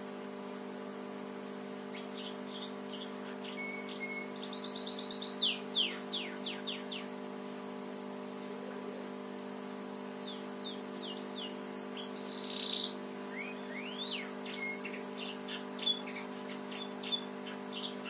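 Canary singing house-sparrow-style chirps over a steady low hum. The song starts a few seconds in as bursts of short high chirps, a fast trill and quick downward-sweeping notes, with a buzzy phrase in the middle and scattered chirps near the end.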